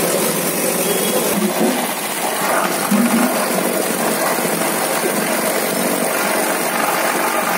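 Motor of a hand-held electric lassi churner running steadily, its metal shaft whirling curd in a steel pot.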